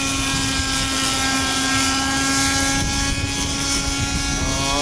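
Raptor RC model helicopter on floats, its engine and rotor running at a steady, unchanging pitch.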